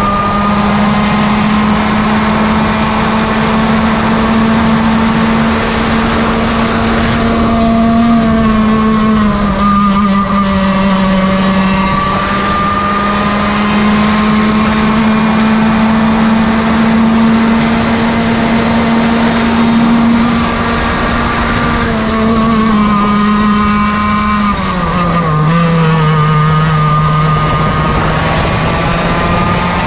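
Yamaha KT100 two-stroke kart engine running hard at a steady high pitch. The pitch falls twice, about eight seconds in and again about twenty-five seconds in, then slowly climbs back up.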